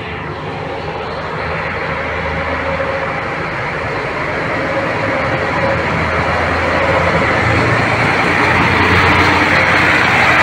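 Scania-chassis Neobus New Road coach's diesel engine running as the coach rolls slowly past at close range. It grows steadily louder, a low engine drone under a rising hiss.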